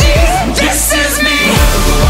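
Pop music with a steady beat.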